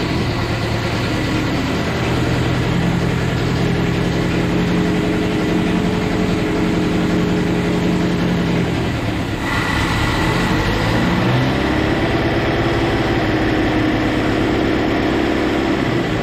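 Datsun L16 1.6-litre four-cylinder engine with a Weber carburettor running just after a cold start, held at a fast, uneven idle because, with its choke not hooked up, it won't idle on its own when cold. The exhaust leaks where the pipe isn't yet welded to the muffler. Engine speed sags and picks up again about ten seconds in.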